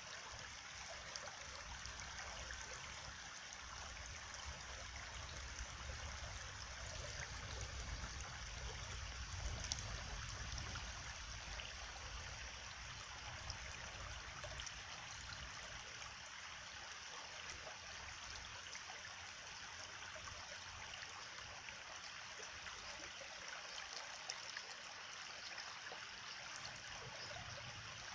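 Stream water flowing and trickling steadily, with small splashes throughout and a low rumble underneath that swells about a third of the way in.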